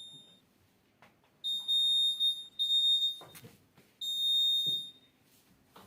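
Alarm buzzer of a homemade laser security alarm sounding a high, steady beep in three separate bursts of about a second each, with short gaps between: the alarm going off each time the laser beam is broken.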